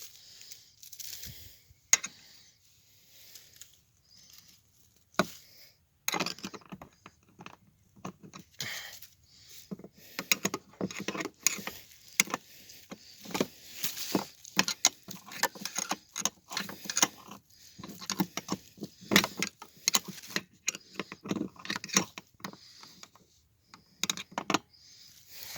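Irregular clicks, clinks and taps of tools and metal parts being handled while a pedal car is reassembled after a chain repair, sparse at first and coming thick and fast from about six seconds in.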